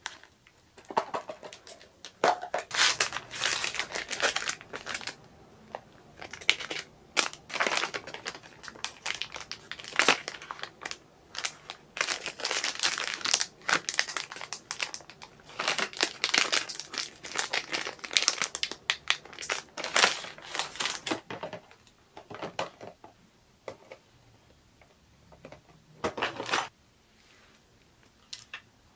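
Plastic product packaging crinkling and rustling as small items are picked up and handled, in irregular bursts that are busiest through the first two-thirds and sparser near the end.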